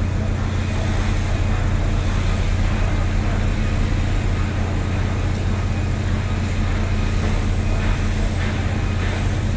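Diesel engine of a lattice-boom crawler crane running steadily, a low drone.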